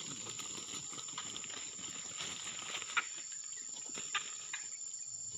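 A steady, high insect chorus of crickets, with rustling and a couple of sharp clicks over it about three and four seconds in.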